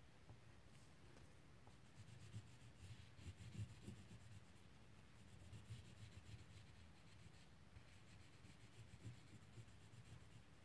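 Wax crayon scratching back and forth on paper in quick, faint strokes, over a low steady hum.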